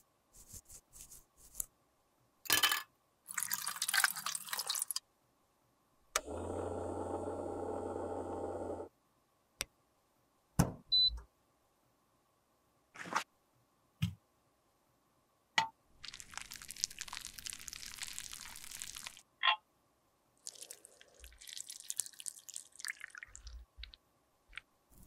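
A run of close-up handling sounds from repairing lipstick: scattered clicks and taps, several bursts of scraping and rustling, and a steady hum for about three seconds. Near the end, melted lipstick is poured into a metal lipstick mold.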